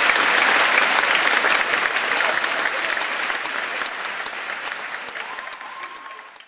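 Audience applauding, the applause gradually fading away toward the end.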